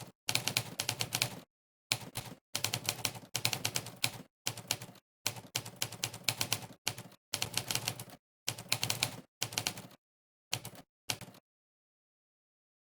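Typewriter keystroke sound effects from a typing-test website, one clack per key pressed, coming in quick runs of several strokes a second with short, completely silent gaps between runs. The clacking stops about eleven seconds in.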